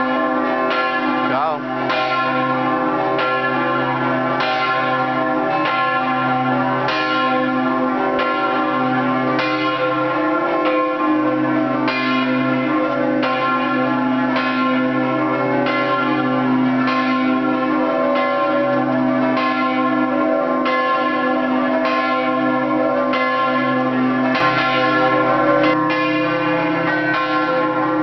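Scampanottata on a three-bell church peal in C cast by De Poli of Udine: the bells rung by hand with their clappers struck in a quick rhythmic pattern, each stroke ringing on into the next.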